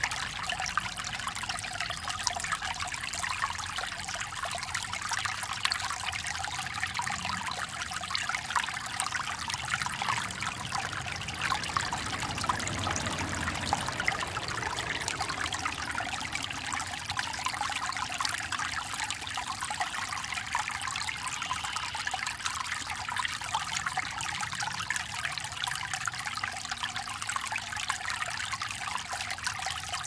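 Small babbling brook, a steady trickling and splashing of shallow running water. A faint low rumble swells and fades around the middle.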